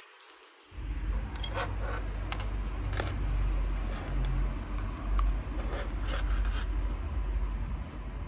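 Metal spoon clicking and scraping against a dish of scrambled egg during eating, a dozen or so light, sharp clicks, over a steady low rumble that starts about a second in.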